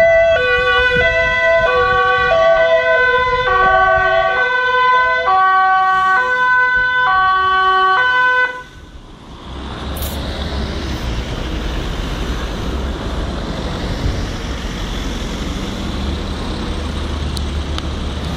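Dutch police van's two-tone siren, switching back and forth between two notes, each held for under a second. It stops about eight seconds in, and then passing cars can be heard, engines and tyres rumbling on the brick-paved street.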